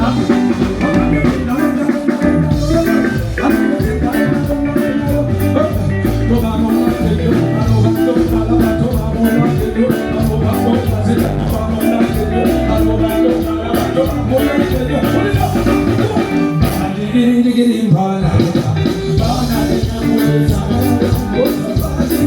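Amplified music with singing over a steady beat. The music thins out briefly about three-quarters of the way through.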